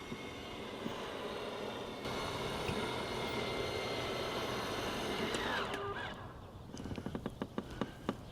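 RV slide-out room's electric motor running as the slide extends, then winding down with a falling pitch and stopping about two-thirds of the way through. A run of light clicks and ticks follows.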